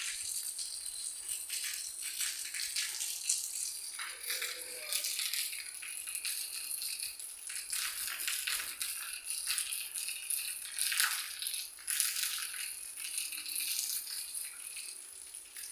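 Rain falling on roofs: a dense hiss that keeps swelling and easing.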